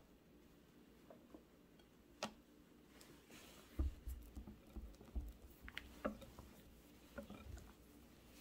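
Wire whisk folding meringue into thick yogurt batter in a glass bowl: soft wet squishing and light pattering as the whisk works, from a little under four seconds in. A couple of sharp clicks come earlier, as the utensil touches the glass.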